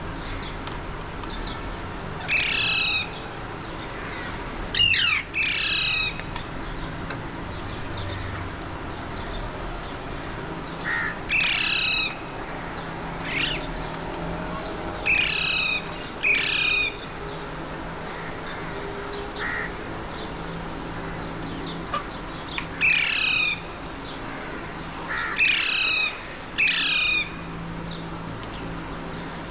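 Alexandrine parakeets squawking: about ten loud, harsh, short calls, singly and in quick pairs, over a steady low background hum.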